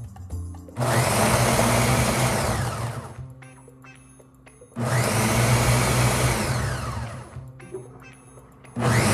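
Countertop blender pulsed three times while grinding dry Hot Cheetos into crumbs. Each pulse cuts in sharply with a loud whirr, then winds down as the motor slows.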